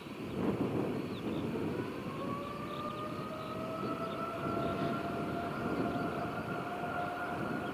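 Jet airliner engines spooling up: a whine that starts rising about two seconds in and then holds steady, over a continuous low rumble.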